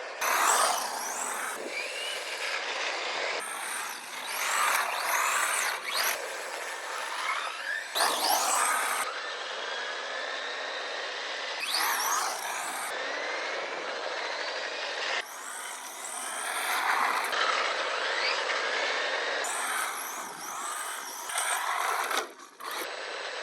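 Electric 1:10-scale RC car with a brushed 550 motor, driven hard on asphalt. The motor and drivetrain whine, rising and falling in pitch with each burst of throttle and braking, with louder passes every few seconds.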